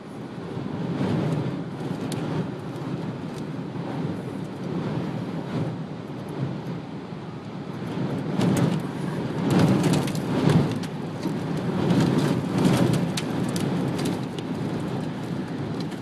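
Storm wind and heavy rain battering a moving car, heard from inside the cabin, with rain ticking on the glass. It grows louder and gustier about halfway through.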